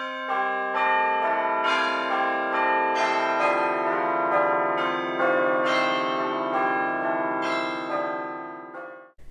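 Church bells ringing, several bells of different pitch struck one after another, each left ringing over the next. The ringing cuts off suddenly near the end.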